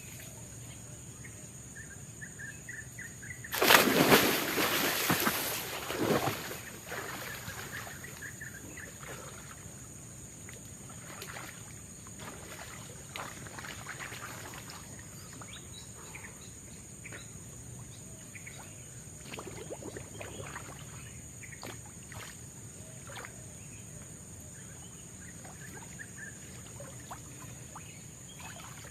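Tropical forest ambience: a steady high insect drone with occasional faint bird chirps. About four seconds in, a loud rushing noise lasts two to three seconds, and scattered light ticks and cracks follow.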